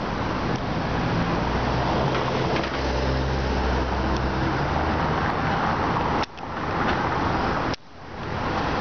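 Road traffic noise: a steady wash of passing vehicles with a low engine hum close by. Near the end the sound drops out sharply twice and fades back in each time.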